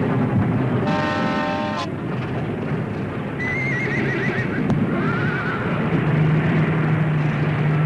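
A horse whinnying twice, each call wavering and falling in pitch, the first longer, the second short, over a steady noisy rumble. A brief steady tone sounds about a second in.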